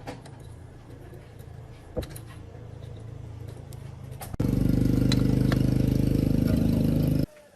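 Diesel engine running steadily, then suddenly much louder from a little past halfway, and cutting off abruptly shortly before the end. A single sharp knock sounds about two seconds in.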